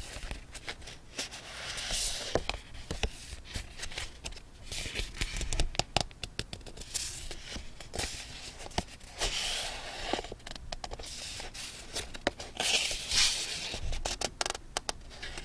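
Paper and stationery being handled for scrapbooking: rustling and scraping of paper, broken up by many small taps and clicks.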